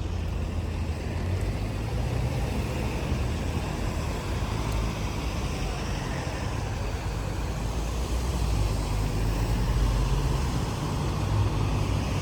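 Steady city street traffic noise: a continuous low rumble of passing cars with a hiss over it, and no single event standing out.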